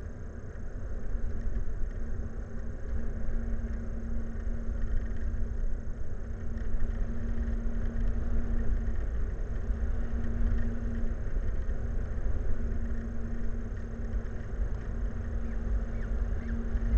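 Steady low rumble with a constant droning hum, like running machinery, that briefly fades and comes back; a few faint short high calls near the end.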